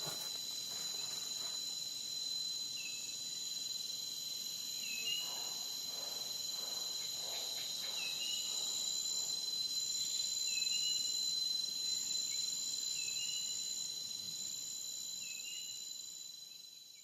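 Steady high-pitched chorus of chirping insects, like crickets, with a short rising chirp repeating about every two and a half seconds. It fades in at the start and out at the end.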